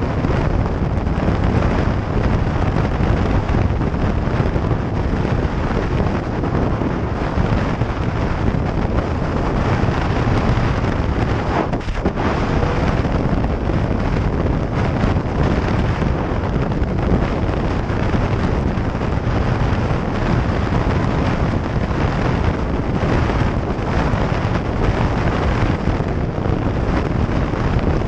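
Wind rushing over a helmet-mounted camera microphone on a Triumph motorcycle at highway speed, loud and steady, with the bike's engine and tyre noise mixed in underneath.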